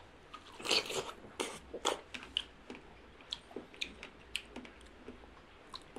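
Fresh strawberries being bitten into and chewed, a run of short wet crunches and mouth clicks, most of them in the first two seconds.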